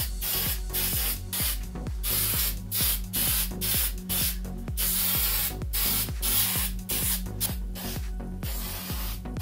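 Aerosol spray can of water-based clear coat hissing in many short bursts, one after another, with brief gaps between them.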